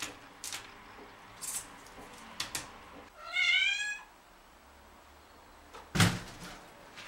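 A Turkish Angora cat gives one meow about three seconds in, rising in pitch and lasting a little under a second. About six seconds in comes a loud thump as the cat lands on a cabinet, the loudest sound, with a few faint soft knocks earlier.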